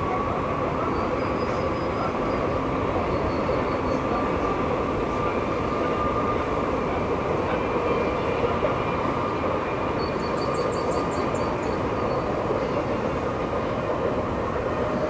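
Rolls-Royce Trent XWB turbofans of a taxiing Airbus A350-900 running at idle, heard at a distance: a steady rumble with a whine held at a few fixed pitches. Faint high chirps come and go over it.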